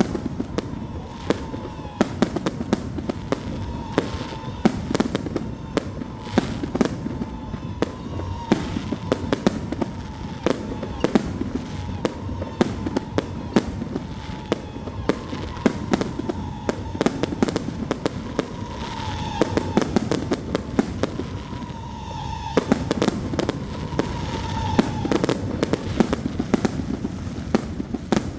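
Fireworks display: a dense, continuous barrage of bangs and crackling bursts. It pauses briefly about three-quarters of the way through, then resumes.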